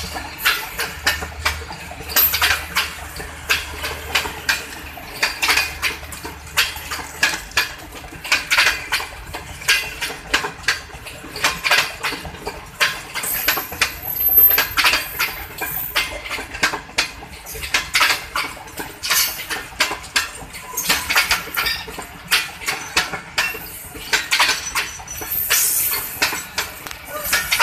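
Train wheels clattering over rail joints and crossings as the passenger coaches of an arriving train roll past: an irregular, unbroken run of sharp metallic knocks and clanks.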